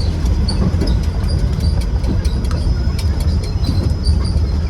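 Quad bike engines running while riding: a steady, heavy low rumble with scattered rattles and clicks.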